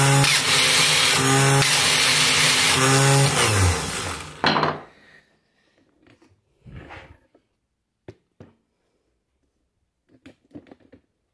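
Renault starter motor running on the bench with a wooden stick pressed against its Bendix pinion: a loud whirring spin that three times drops into a heavier hum as the wood loads the pinion, the Bendix sometimes slipping and sometimes gripping. The motor winds down about four seconds in and stops with a sharp clack, followed by a few light knocks.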